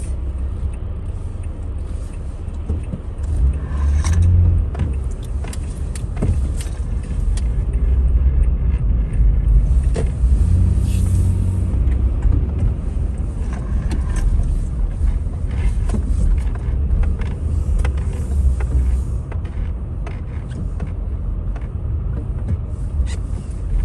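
Car cabin noise while driving on wet pavement: steady low engine and road rumble with tyre hiss, swelling a little a few times, and scattered light clicks and taps.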